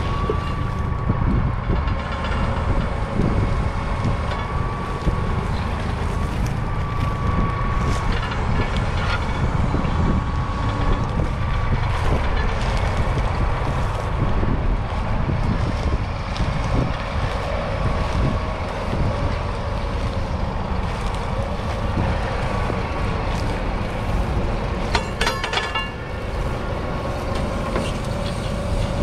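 Massey Ferguson 4707's 3.3-litre three-cylinder diesel engine running steadily under load as the tractor pulls a two-furrow reversible plough. Near the end comes a brief rattle of metallic clicks.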